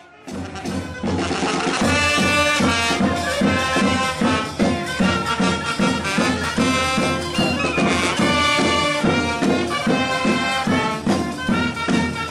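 A charanga, a Spanish street band of brass and drums, playing a tune while marching: horn melody over a steady beat. It comes up from quiet within the first second or two.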